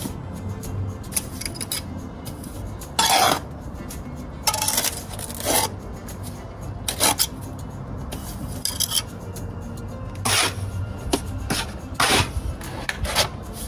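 Bricklaying trowel scraping and clinking against mortar and bricks as mortar is spread along a brick course: a string of short, sharp scrapes and taps a second or two apart.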